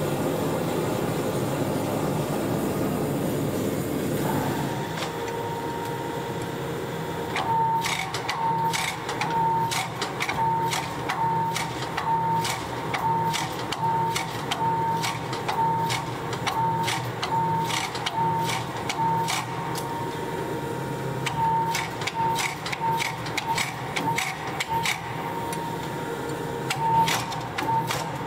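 Gas forge burner roaring steadily for the first few seconds, then a power hammer running with a steady hum, and from about seven seconds in its ram striking a red-hot steel axe-head billet in fast repeated blows, about two a second, with a few short pauses.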